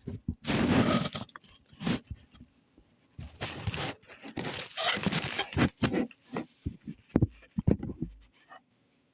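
Hands squeezing and stretching slime: irregular squishing and crackling bursts with sharp clicks, stopping near the end.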